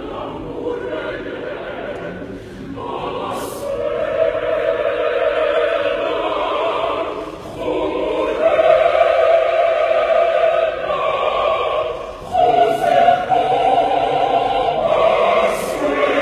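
A choir singing in long held chords, phrase by phrase, with brief breaths between phrases about every four seconds.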